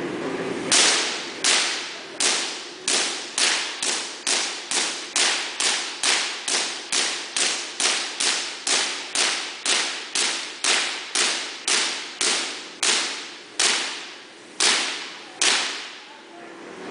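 Van de Graaff generator throwing artificial lightning: a run of about thirty sharp spark cracks, roughly two a second and spacing out near the end. Each crack rings on briefly through the hall.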